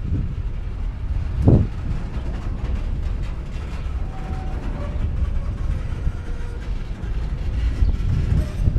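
Empty coal train's hopper cars rumbling, with one loud metallic bang about one and a half seconds in: slack running through the couplers between cars as the train starts and stops. Faint metal squeals come a few seconds later.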